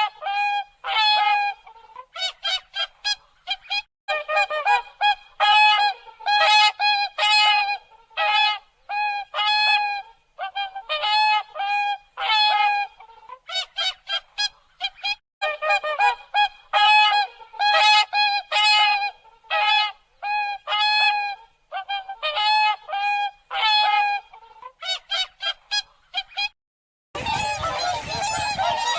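Swans calling: a long, fast run of short honking calls, several a second, each a clear pitched note. Near the end the calls cut off suddenly and a different, denser sound takes over.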